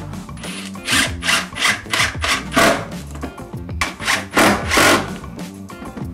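Power drill driving a screw into a plywood strip in a series of short spurts, the wood crunching with each one.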